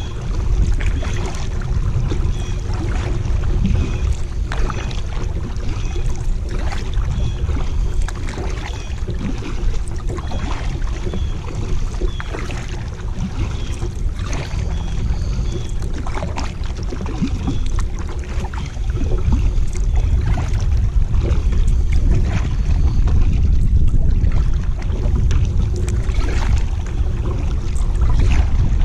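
Kayak paddle strokes dipping into calm river water, with splashes and drips every second or two, over a steady low wind rumble on the microphone.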